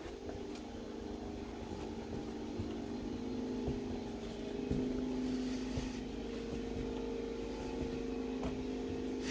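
Steady mechanical hum of a running motor, holding one even pitch throughout.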